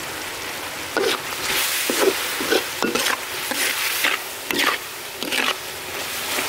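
Sliced shallots, garlic and ginger sizzling in oil in a steel wok. From about a second in, a spatula scrapes and stirs them in repeated strokes, which stop near the end and leave the steady sizzle.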